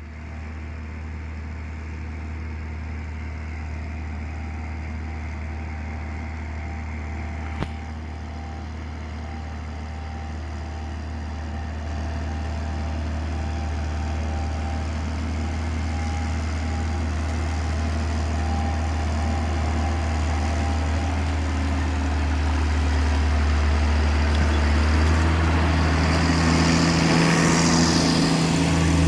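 New Holland T7.060 tractor's six-cylinder diesel engine running steadily, growing steadily louder. There is a single sharp click about eight seconds in, and a hiss builds over the engine near the end.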